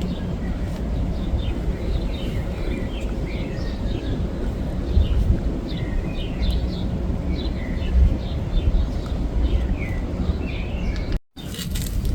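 Small birds chirping and twittering in quick short calls over a steady low rumble of outdoor background noise. The sound cuts out completely for a moment near the end.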